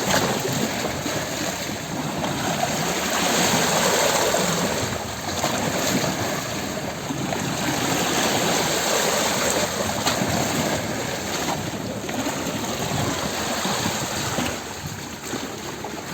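Rushing water: a steady dense wash that swells and eases slowly every few seconds.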